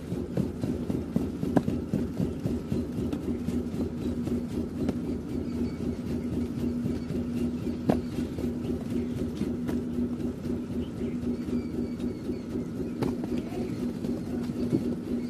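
An engine running steadily, a low rumble joined by a steady hum about three seconds in, with a few sharp clicks.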